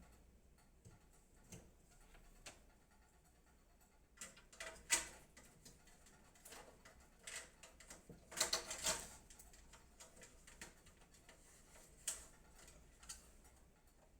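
Scattered light clicks and small knocks of hands working inside a PC case, fitting SATA cables and drives, with a short flurry of clicks a little past the middle.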